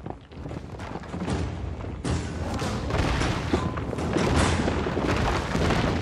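Heavy booms and crashing impacts of a fantasy battle, turning into a dense, deep rumble about two seconds in, with background music underneath.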